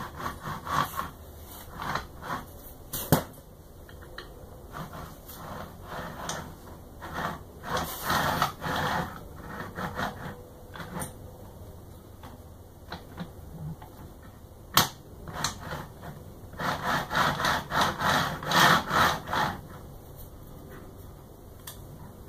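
Handling noise from the printer's acrylic bed and Y-axis frame: scattered clicks, knocks and rubs, with a sharp click twice and a denser run of rapid rasping clicks about three-quarters of the way through.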